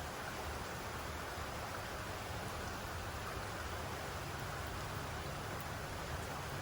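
Steady rainfall: an even, unbroken hiss of rain, with a low rumble underneath.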